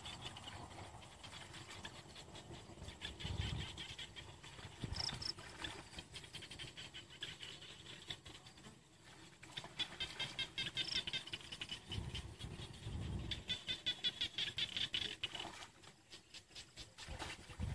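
Rapid high-pitched pulsed chirping, typical of insects, with dull low rustles or thumps about three seconds in and again around twelve to thirteen seconds.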